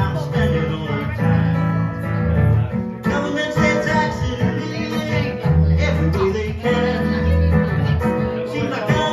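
Acoustic guitar played live, amplified through PA speakers.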